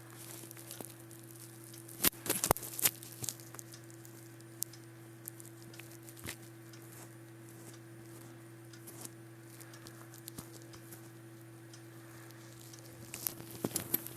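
Scattered sharp clicks and taps, a cluster of them about two seconds in and again near the end, over a steady low electrical hum.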